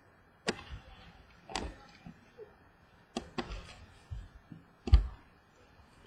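Trading cards being handled: a string of light clicks and taps at uneven intervals as cards are flicked and set down, the loudest a knock about five seconds in.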